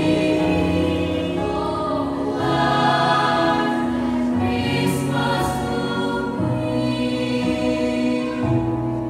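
Mixed youth choir of girls' and boys' voices singing in several-part harmony, in slow, long-held chords.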